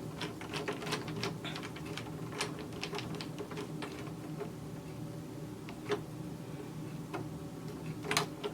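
Small clicks and taps of metal parts being handled on a Brother 1034D serger as its new lower knife is set flush with the throat plate and its screw is set, over a faint steady hum. The clicks come quickly for the first few seconds, then only now and then.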